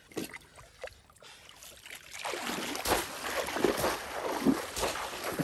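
A few faint knocks, then from about two seconds in loud, uneven splashing as legs wade and kick through shallow, muddy pond water.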